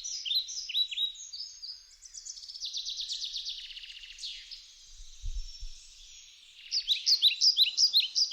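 Songbird singing close by: strings of sharp, quickly falling chirps, a fast trill a few seconds in, and a louder run of chirps near the end.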